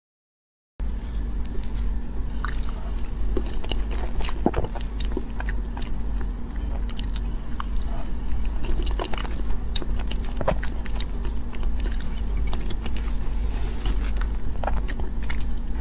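Close-miked eating of cream cake with a metal spoon: scattered small clicks of the spoon and mouth sounds of biting and chewing, over a steady low hum. It starts after about a second of silence.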